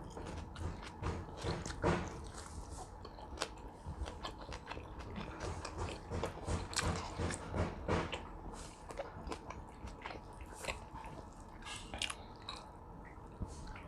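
A person biting and chewing food close to the microphone, with irregular short clicks and smacks of the mouth.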